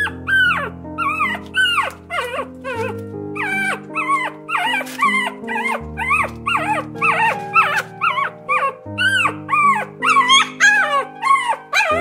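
Puppy whimpering and yipping in a rapid string of short, high calls that rise and then fall, about two or three a second, over background music with slow held chords.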